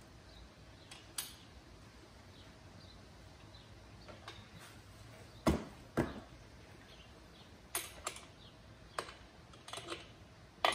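Scattered metallic clicks and knocks of a wrench working the chain adjuster bolts on a dirt bike's rear swingarm, the two loudest knocks about half a second apart midway, with a few lighter clicks toward the end.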